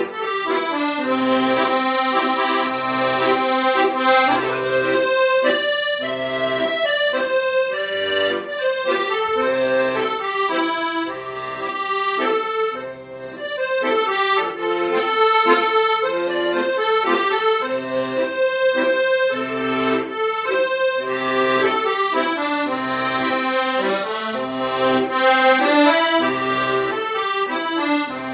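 Accordion playing the melody of a slow Korean trot song, with chords and a steady bass beat underneath.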